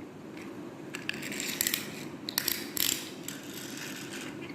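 Miniature toy cars' pull-back motors: small gears whirring and ratcheting in several short bursts as the cars are wound back and let go.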